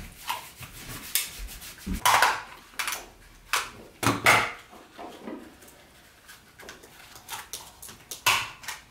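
Cardboard toilet-paper rolls being squashed and fitted together by hand: rubbing and crinkling with a few sharp knocks on the table. A desk stapler is pressed about four seconds in.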